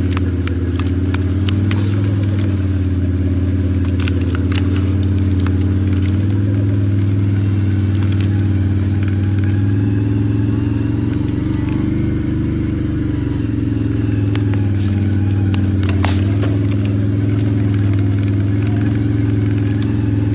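Quad bike engine running steadily as the bike drives across rough pasture, with scattered clicks and rattles over it.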